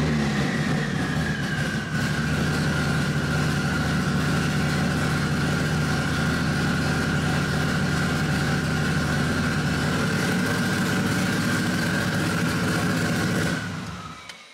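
Mitsubishi Lancer Evolution VIII's freshly rebuilt 4G63T turbocharged four-cylinder idling on its first start after the rebuild, heard from inside the cabin, with a steady high whine over it. The revs settle down in the first second or so, and the engine is switched off near the end.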